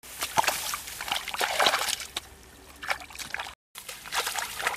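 Bare feet sloshing and squelching through wet mud and shallow muddy water, with irregular splashes, briefly cut off about three and a half seconds in.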